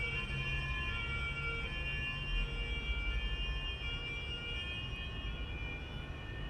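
Ambulance siren sounding a two-tone alternating call, switching between two pitches under a second apart, over a low rumble of road noise. It fades slightly toward the end.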